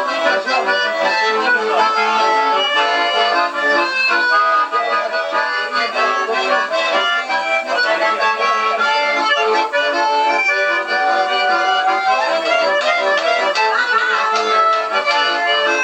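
Bayan (Russian button accordion) playing a tune, with a steady pulse of short chords under the melody.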